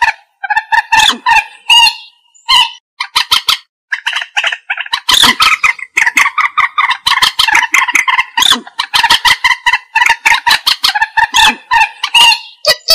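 Common moorhen calling: fast runs of short, sharp repeated notes, broken by brief pauses in the first few seconds, then an unbroken rapid chatter from about five seconds in.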